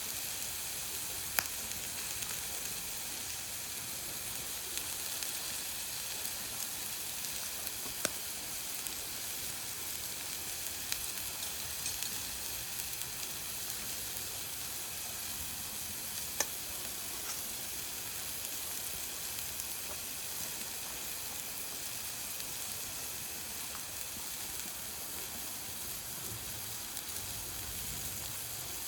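Food sizzling steadily in a frying pan over a wood-burning camp stove, with a few sharp pops.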